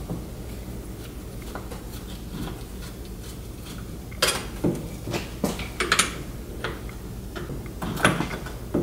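Small metal parts of a Treadle-Vac brake booster clicking and clinking as they are handled on a workbench during teardown. Fairly quiet at first, then a run of about half a dozen sharp clinks in the second half.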